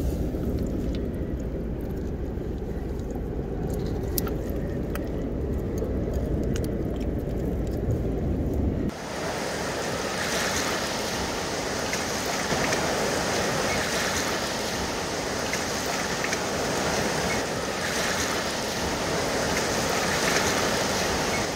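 Seawater lapping and trickling in a shallow rock pool close by, with surf breaking on the shore behind: a steady hiss of moving water. For the first nine seconds there is a lower rumble with small clicks and drips as a seaweed-covered rock is held up out of the pool, then an abrupt cut to the brighter sound of the water.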